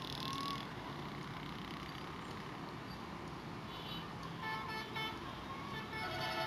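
Horn of an approaching train's locomotive, sounding several short blasts from about four seconds in, then a longer blast near the end.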